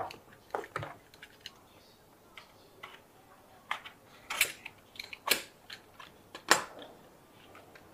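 Stiff epoxy board panels around a battery's cell pack being cut free at taped corners and folded back by hand: scattered sharp clicks and taps with short rustles. The loudest come in the second half.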